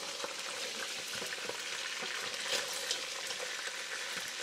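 Meat frying in a pot with a steady sizzle, stirred with a wooden spoon that now and then clicks and scrapes against the pot.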